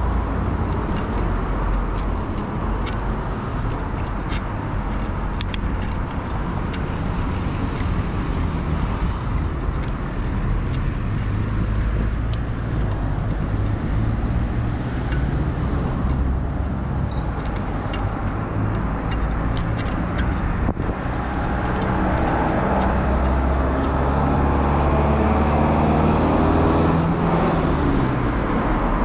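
Wind rumbling on a bicycle-mounted action camera's microphone, mixed with road traffic passing alongside, with scattered light clicks. From about two-thirds of the way through, a motor vehicle's engine passes close by, its pitch dropping near the end.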